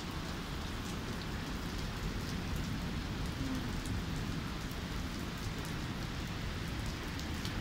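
Heavy rain falling in a thunderstorm: a steady, even hiss of rain with scattered sharp drop ticks.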